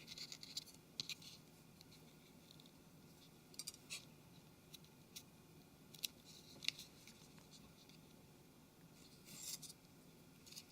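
Faint, scattered small clicks and brief scratching of small phone parts being handled on a work surface, with a longer scratch near the end.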